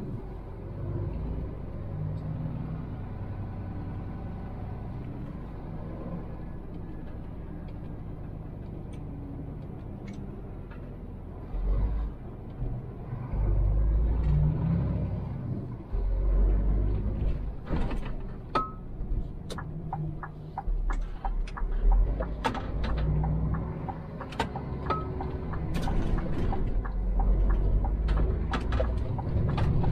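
Semi-trailer truck on the road running empty: a low engine and road rumble that grows louder about twelve seconds in, with scattered sharp clicks and knocks through the second half.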